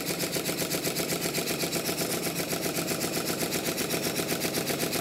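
Model Stuart Triple triple-expansion steam engine running on compressed air, with its engine-driven vacuum pump and water pump still connected, giving a rapid, even mechanical beat. It is running smoothly now that the intermediate cylinder's expansion link is supported.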